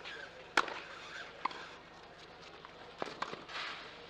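Tennis ball struck by rackets in a baseline rally on a clay court: sharp pops, the loudest about half a second in, with more around a second and a half and near three seconds.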